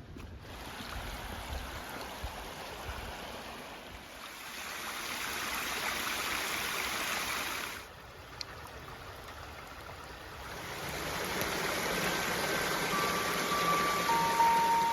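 Creek water running over rocks: a steady rushing hiss. It drops out about halfway, then swells again and grows louder. Piano notes come in near the end.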